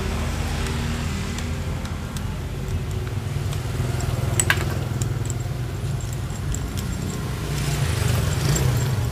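Steady low motor rumble like a vehicle engine running, with one sharp click about halfway through.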